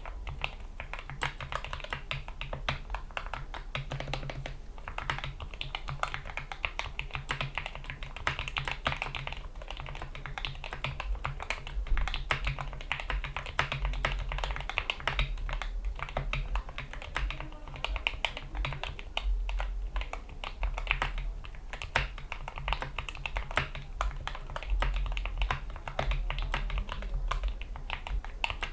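Continuous, rapid typing on a GK61 mechanical keyboard with lubed Gateron Yellow optical linear switches, PBT keycaps and O-ring dampeners under the keys: a dense stream of key clacks.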